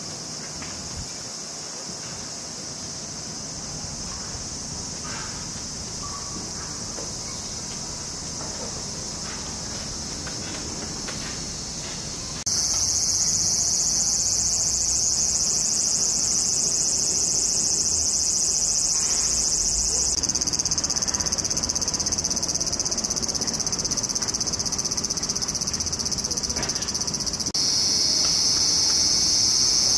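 Summer chorus of cicadas, a steady high buzz that jumps abruptly louder about 12 seconds in and again near the end.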